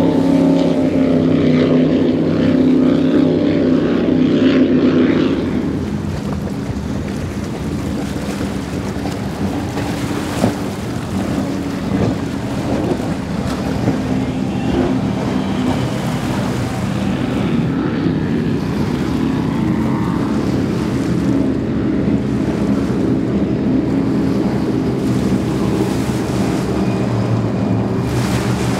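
Offshore powerboats passing at speed. First comes the deep, many-toned engine sound of an Outerlimits, which drops away about five seconds in. A rushing stretch of water and wind noise follows, and from about the middle on the engines of the next boats build again.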